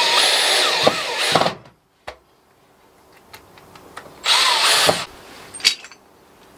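Cordless drill driving screws through a gate hinge into a timber gate post: one run of about a second and a half, then a second, shorter run about four seconds in, followed by a small click.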